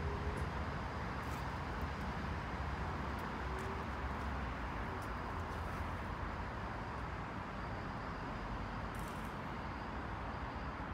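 Class 158 diesel multiple unit pulling away, its engine rumble steady and slowly fading as it draws off.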